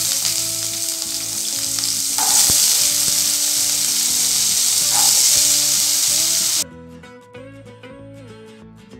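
Potato chunks sizzling hard as they drop into hot mustard oil in a kadai, with a fresh surge of sizzle about two seconds in as more potatoes go in. The sizzle cuts off suddenly near the end, leaving soft background music.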